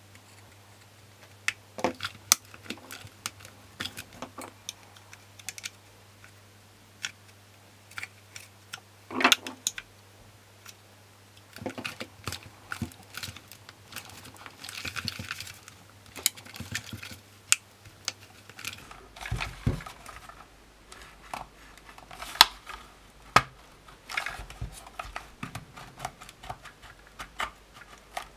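Scattered clicks, taps and scrapes of a Dyson V10 cyclone assembly's plastic clips and housing being pried with a thin metal tool and twisted apart by hand, with a longer scrape about halfway through.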